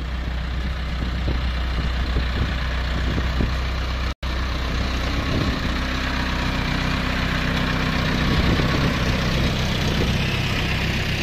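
Farm tractor's diesel engine running steadily close by as it pulls a trailer loaded with chopped corn silage. The sound breaks off for an instant about four seconds in.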